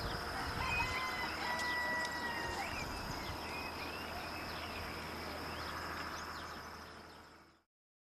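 Rural village ambience: a rooster crowing once for about two seconds near the start, over a steady high insect trill. The sound fades out near the end.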